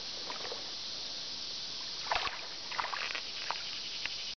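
Steady rush of creek water, with a few sharp splashes about two seconds in and again shortly after, as a small smallmouth bass is let go back into the water.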